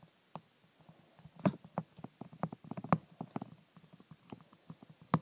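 Faint, irregular taps and ticks of a stylus on a tablet screen during handwriting, with a few sharper taps among them.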